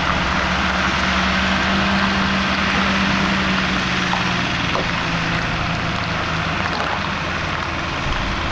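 A heavy engine running steadily with a constant low hum.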